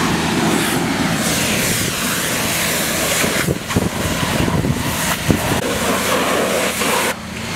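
Water spraying from a hose onto a burnt, smoking pickup truck to put out the fire, a loud continuous rushing hiss of spray and steam, over the steady drone of an engine running.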